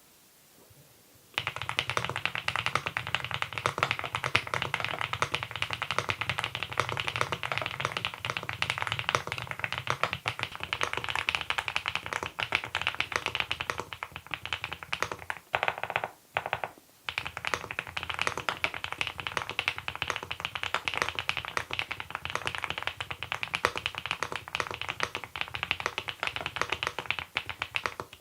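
Typing on a Monstargear Ninja87 Pro ALU aluminium-case mechanical keyboard fitted with its stock Hanbaekok switches: fast, continuous keystrokes that start about a second in, with a brief pause about halfway through.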